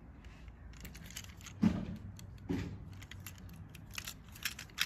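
Die-cast toy cars clinking and rattling as they are handled and sorted: a scatter of light metallic clicks, with two dull knocks a little under two seconds and about two and a half seconds in.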